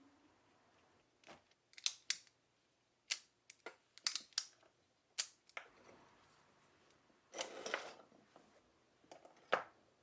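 About a dozen sharp clicks and snips of hand work on the suitcase, irregularly spaced, with a short scraping rustle a little past the middle.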